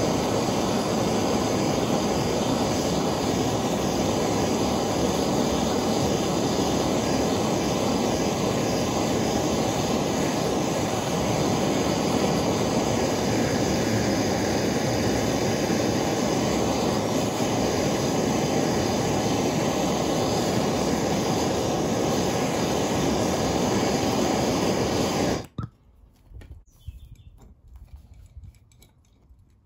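Gas blowtorch burning with a steady rushing noise as it heats the old track rod end on a car's suspension arm so it will unscrew. It stops suddenly near the end, followed by faint metal clicks of a spanner on the rod end.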